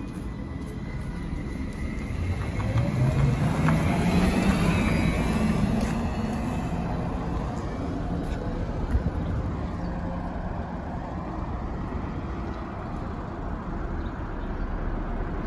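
Sinara-6254 trolleybus under way: steady rumble of the running vehicle, with the electric traction drive whining up in pitch as it speeds up a couple of seconds in, then easing. A single short knock about nine seconds in.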